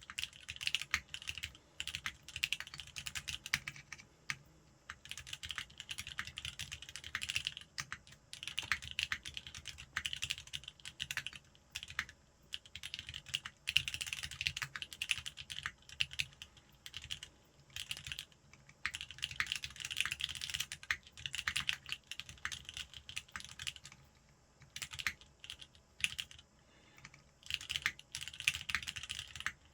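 Typing on a custom mechanical keyboard with lubed Cherry Black linear switches in an aluminium-plate sandwich mount and Ramaworks keycaps. Keystrokes come in dense runs of a second or two with short pauses between them.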